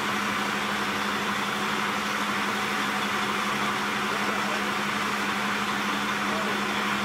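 Bobcat compact track loader's diesel engine idling steadily, a constant hum with an even hiss over it.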